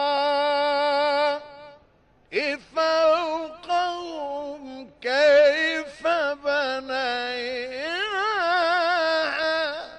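A man's voice in mujawwad-style melodic Quran recitation: one long held note, a short break about two seconds in, then ornamented, wavering melodic runs on drawn-out vowels.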